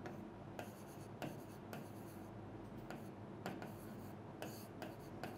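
Handwriting strokes on a board, faint and irregular, about two short strokes a second, as a line of text is written.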